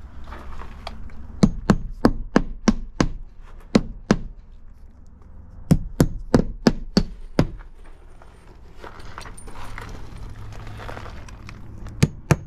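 Hammer driving nails into vinyl board-and-batten siding: runs of about six quick blows, roughly three a second, with a pause of a couple of seconds between runs and another run starting near the end.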